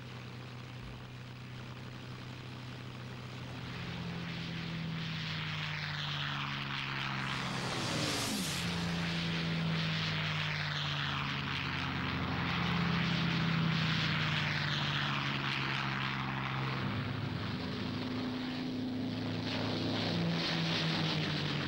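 Several piston-engined propeller fighter planes running at take-off power, a steady engine sound that grows louder. About eight seconds in, one passes close, its pitch dropping as it goes by.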